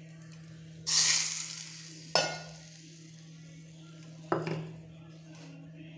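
Hot tempering oil with mustard seeds and asafoetida poured from a small iron pan onto chopped raw mango sizzles loudly about a second in, the hiss fading over a second. Then the metal pan clinks twice with a ringing sound, about two seconds apart.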